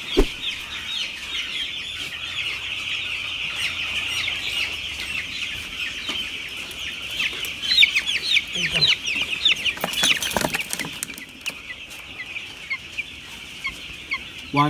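A flock of 11-day-old broiler chicks peeping continuously, many short falling peeps overlapping. Louder, closer peeping comes about eight seconds in as chicks are caught and held over the scale bowl, and a few sharp knocks sound about ten seconds in.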